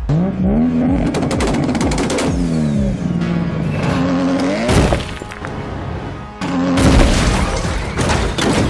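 Cartoon sound effects over background music: an engine revving up and down several times, then two loud crashes about two seconds apart.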